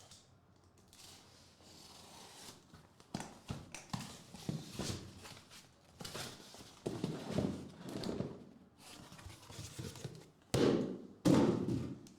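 Trading-card boxes and wrapping being handled on a table: rustling and scattered clicks and taps, with two louder thumps near the end.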